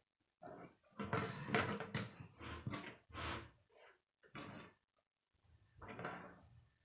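Plastic K'nex rods and connectors clattering as a built frame is shifted across a wooden tabletop and pieces are handled, in a run of irregular bursts that is loudest between one and two seconds in.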